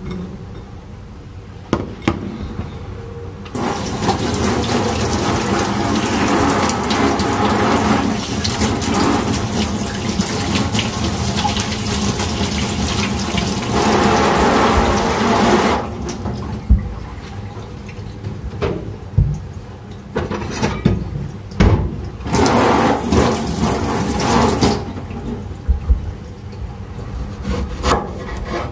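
Kitchen tap running into a stainless steel sink while a tomato is rinsed under it, in a long spell of about twelve seconds and then a shorter one of a few seconds. Scattered knocks and clatter fall between and after the spells.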